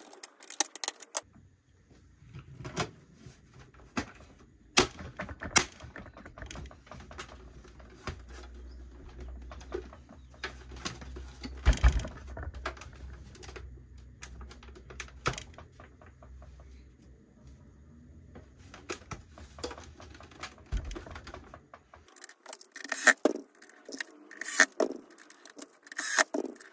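Irregular plastic clicks and knocks from an APC Back-UPS 1400's case as it is closed up and handled: front cover fitted, unit set upright, a power cord plugged into its back near the end. A low rumble from the handling runs under the clicks and stops near the end.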